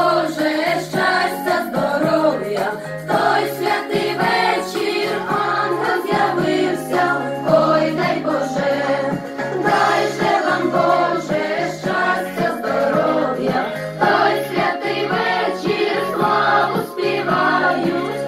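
A group of voices singing a Ukrainian Christmas carol (koliadka) together, over low held bass notes that change in pitch.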